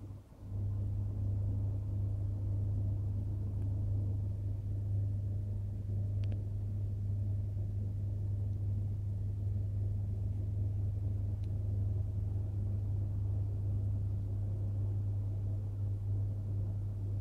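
A machine's steady low hum that switches on about half a second in and runs evenly, with a faint click about six seconds in.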